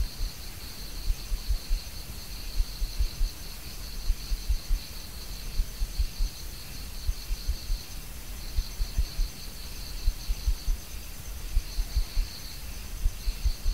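Background insects, cricket-like, chirring steadily at two high pitches with a couple of short breaks, over faint irregular low thumps in the recording.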